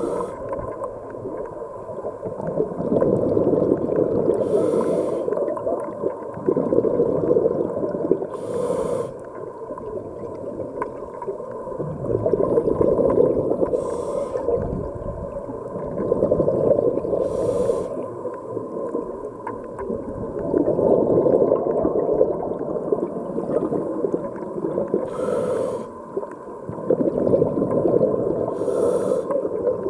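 Scuba diver breathing through a regulator underwater: a short hiss of inhalation every four seconds or so, each followed by a longer rumbling gurgle of exhaled bubbles.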